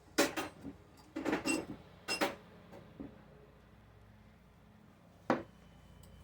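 Tools clinking and clattering as they are handled and rummaged through: three short bursts of clatter in the first two and a half seconds, then one sharp knock about five seconds in.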